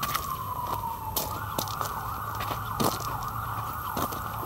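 Emergency-vehicle siren, its wail sliding down in pitch and then switching to a rapid warbling yelp about a second in, over footsteps crunching on gravel.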